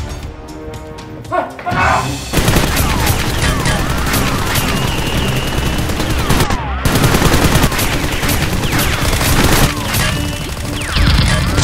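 Rapid automatic gunfire sound effects in long bursts over background music, starting about two seconds in, with a brief pause partway through. It is movie-style gunfire added to the Nerf blaster shooting, not the blasters' own sound.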